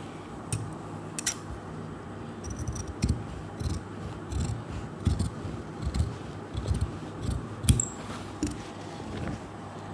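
Large steel tailor's shears cutting through white fabric in a regular run of snips, about two a second, starting a couple of seconds in, after two sharp clicks near the start.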